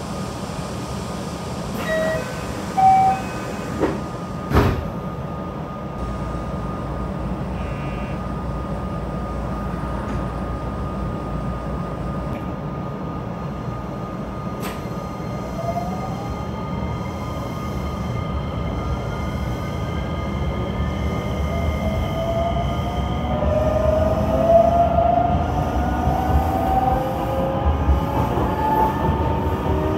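JR West 227 series electric train's Toyo IGBT-VVVF inverter whining as the train pulls away, several tones gliding upward in pitch over a steady running rumble. A few short electronic beeps and a sharp knock come in the first five seconds.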